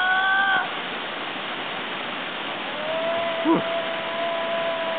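Shallow creek water running, a steady rush. Over it a high held tone sounds briefly at the start and again for about two seconds from about three seconds in.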